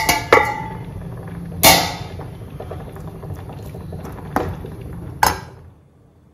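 Steel lid and metal spoon clinking against a wok while pork dry-fry is stirred: several sharp clinks, the loudest about two seconds in. Under them runs a steady low hum that cuts off near the end.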